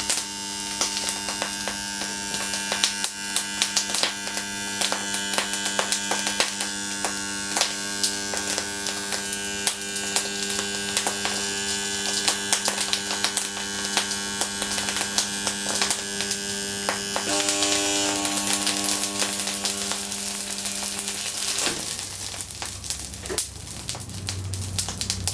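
The bare stator windings of a TECO rotary compressor hum loudly on mains power, with steady crackling and popping as water trapped in the windings boils off and the lacquer and refrigerant oil superheat. The hum changes pitch about 17 seconds in and cuts off about 22 seconds in as the winding shorts and burns out. Fainter crackling carries on after that.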